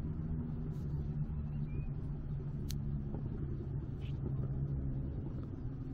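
Steady low rumble with a constant hum, like a motor running, and one brief tick near the middle.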